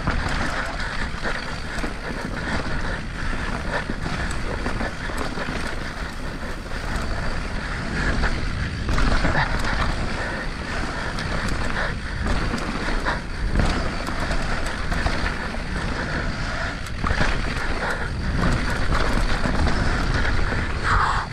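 Mountain bike descending a wet dirt downhill trail, heard from a GoPro on the rider: wind buffeting the microphone, a low rumble of tyres on the ground and frequent short rattles and knocks from the bike over bumps.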